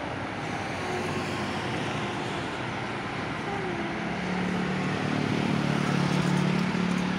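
Steady traffic noise from cars passing on a multi-lane toll road. About four seconds in, a deeper engine hum joins and grows louder toward the end, as a truck passes close by.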